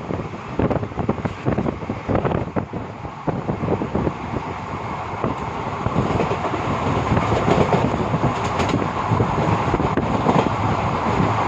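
Moving train running along the rails, its wheels clattering over the track under a steady rush of running noise that grows louder in the second half.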